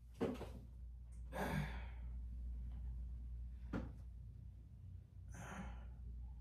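A person sighing: soft breathy exhalations about a second in and again near the end, with a short click in between, over a low steady hum.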